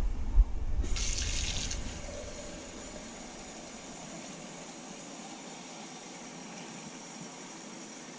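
Kitchen faucet running into a glass measuring jug, filling it with water. There are a few low thumps in the first two seconds, and the stream hisses loudest for about a second near the start, then runs steadily.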